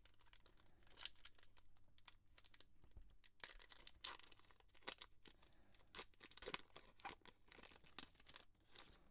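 A trading-card pack wrapper being torn open and crinkled, in faint scattered rustles and crackles.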